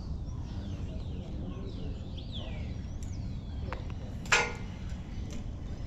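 Birds calling in a quick series of short whistled glides over the first three seconds, then one loud, short, harsh call a little past four seconds in, over a steady low rumble.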